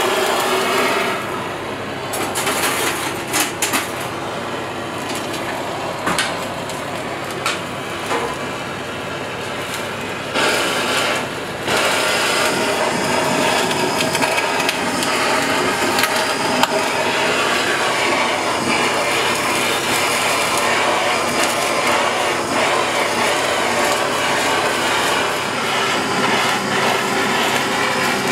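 Handheld butane cooking blowtorch hissing steadily as its flame caramelises the skin of a duck galantine, with a few sharp clicks and knocks in the first twelve seconds.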